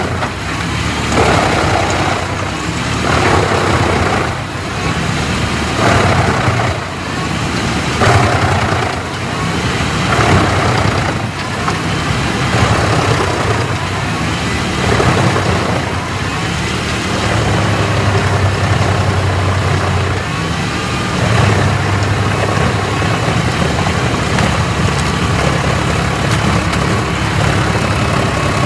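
Large wood chipper running, its engine hum broken by repeated surges of grinding about every two seconds as wood is fed through. In the second half it settles to a steadier engine drone.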